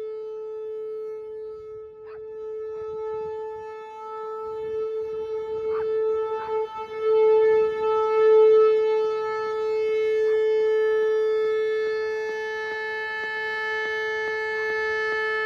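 Whelen Vortex outdoor warning siren sounding a steady, low-pitched tone during a test, its pitch held constant while its loudness swells and fades.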